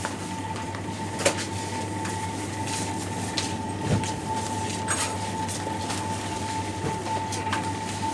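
Steady machine hum of a supermarket's chilled produce display cases and air handling, with a constant high whine. A few scattered clicks and knocks, the sharpest about a second in.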